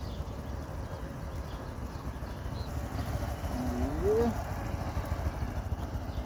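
Small motorcycle engine running at low speed as the bike weaves through cones, with a brief rise in revs about four seconds in, over a steady low rumble.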